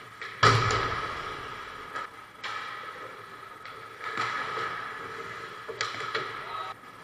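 Ice hockey play: a loud sharp crack of stick and puck about half a second in rings out through the rink, followed by several lighter clacks over the steady hiss of skates on ice.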